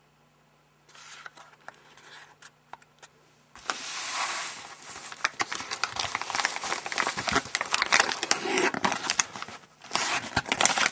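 Crinkling and rustling of something being handled, with many small clicks; it starts faint about a second in and becomes loud and continuous about three and a half seconds in.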